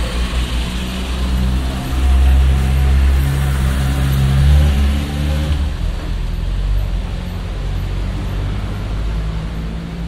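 Motor scooter engine running as it comes up the street, loudest from about two to five seconds in, over general street noise.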